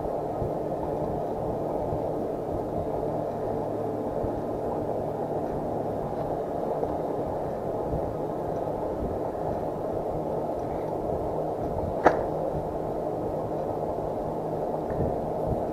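Steady low rush of noise from riding an e-bike, with a faint hum running through it, and one sharp click about twelve seconds in.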